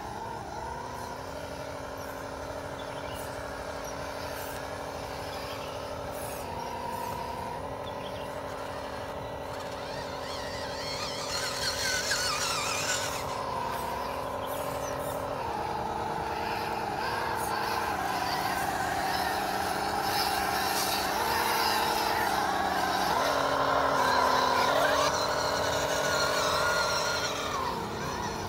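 Electric motors and gearboxes of mini-scale RC crawler trucks whining as they drive through mud, the pitch stepping up and down as the throttle is eased on and off. The whine grows louder in the second half.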